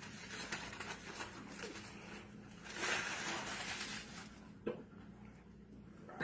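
Rustling and crinkling noise, loudest about three seconds in, followed by a short knock near the five-second mark.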